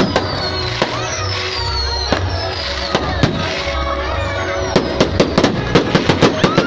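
Fireworks going off: separate bangs about a second apart, then a fast run of many cracking bangs from about five seconds in, over loud music with a pulsing bass.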